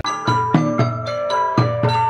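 Music on struck mallet-percussion instruments, xylophone-like: a quick run of sharply struck, ringing notes over lower struck strokes. It cuts out for an instant at the very start.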